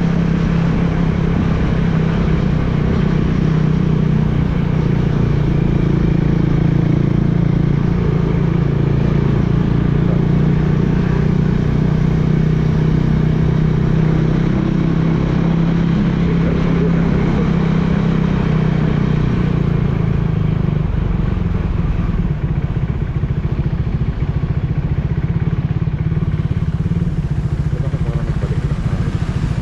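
Motorcycle engine running steadily at cruising speed, heard from on the bike. About two-thirds of the way through, the engine note drops lower and rougher as the bike eases off behind slower traffic.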